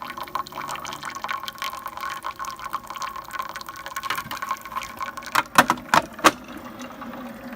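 Keurig coffee brewer pumping a brew cycle, its water gurgling and spattering back into the water reservoir instead of going through the K-Cup, a fault the owner suspects comes from coffee grounds clogging the K-Cup needle. Three sharp knocks come about five to six seconds in.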